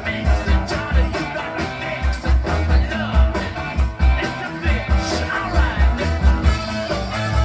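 Music with a strong, steady bass beat and guitar, played through a Yamaha integrated amplifier and Bowers & Wilkins 606 S2 bookshelf speakers.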